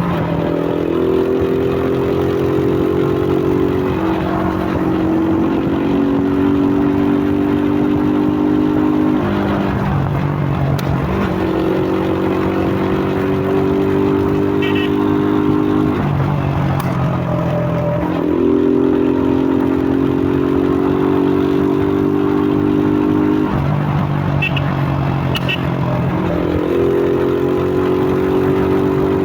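Suzuki Fiero's single-cylinder four-stroke motorcycle engine, breathing through a K&N RC1060 pod air filter, running under way. Its pitch steps up and drops back several times as the throttle is opened and closed.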